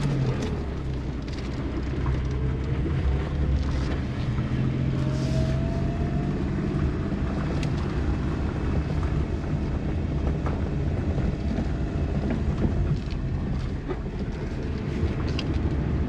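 Suzuki Kei Works pulling away and driving slowly, heard from inside the cabin: a steady low engine and drivetrain hum, with a brief faint rising tone about a third of the way in. There is no 'gōō' rumble, and the driver takes this to mean the drivetrain noise has been cured.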